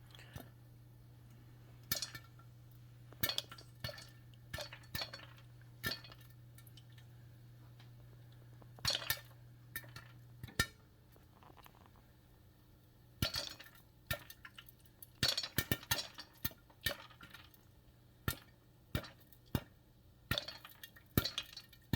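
Popcorn kernels popping in hot oil in a lidded saucepan: sharp, irregular pops, a few at a time at first and coming more often in the second half as the popping gets under way.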